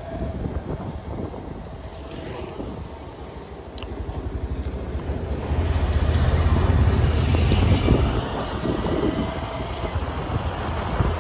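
Wind buffeting the microphone over the low rumble of a moving two-wheeler. It grows louder about halfway through, then eases a little near the end.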